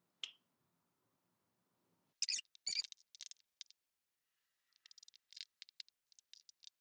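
Marker pen writing letters on a sheet, its tip squeaking and scratching in short strokes: a couple of louder strokes about two seconds in, then a run of quick small strokes near the end. A faint tick comes just after the start.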